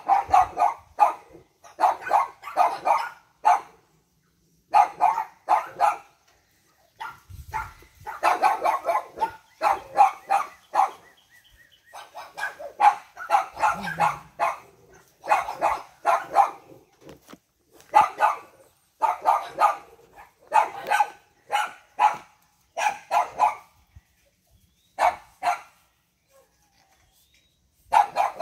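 A dog barking over and over in quick runs of short barks, with brief pauses between the runs.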